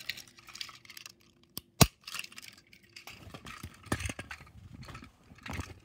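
Small screwdriver turning the battery-cover screw on a plastic toy train engine: light clicks and scrapes, with one sharp click about two seconds in. A faint steady hum stops about three seconds in, after which the toy is handled and carried with rustling and plastic clatter.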